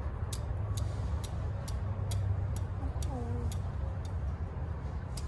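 Regular ticking, about two sharp clicks a second, over a steady low rumble.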